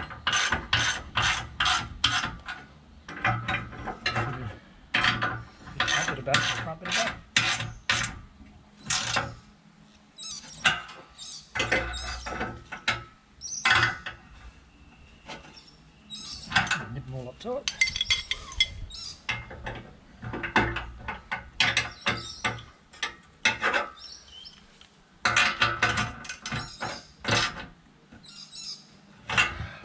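Socket ratchet wrench clicking in quick runs of about four or five clicks a second as bolts on a bike-rack mounting plate are tightened, with short pauses between the runs.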